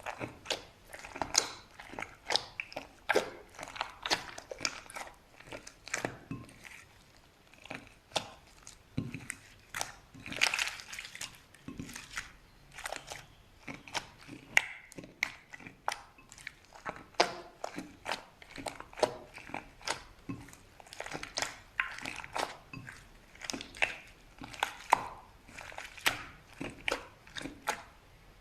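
Slime being handled: squeezed, pressed and stretched by hand, giving irregular sticky pops and crackles, a few a second.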